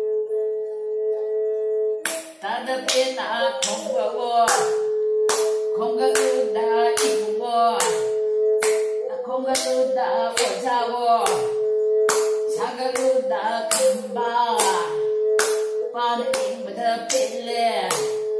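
A bowed string instrument plays a sustained melody. About two seconds in, an older woman starts singing along and clapping a steady beat of about two claps a second.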